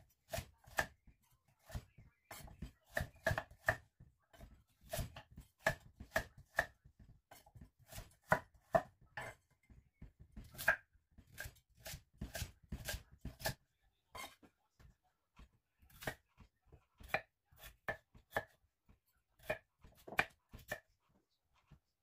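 Chef's knife chopping carrots and then potatoes on a wooden cutting board: a run of irregular sharp knocks as the blade hits the board, a few a second, with brief pauses.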